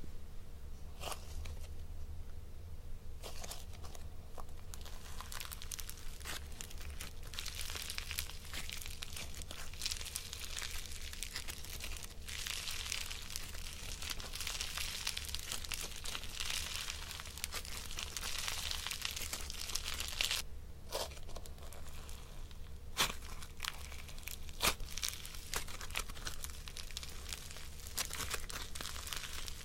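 Butter slime with small foam beads being squeezed and stretched by hand, giving a dense, fine crackling as tiny air bubbles in it pop. A few louder snaps stand out.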